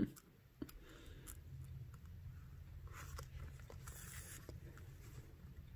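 Faint hand-beading sounds: a sharp click at the start, then scattered small clicks and a brief rasp about four seconds in as the needle and thread are drawn through the felt backing. A low steady hum sits underneath.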